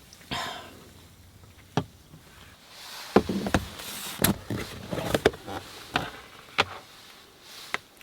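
Handling noises: a string of sharp knocks and clicks, about eight spread unevenly, with rustling in between, loudest in the middle.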